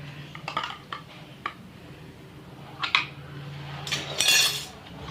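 Scattered light clinks and taps of a spoon against plastic slime containers, with a short scraping rustle about four seconds in.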